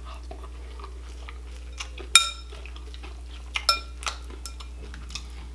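Spoon clinking against a clear glass bowl of cereal and milk. A sharp ringing clink comes about two seconds in, and a few lighter clinks follow around three and a half to four seconds in, with faint chewing between them.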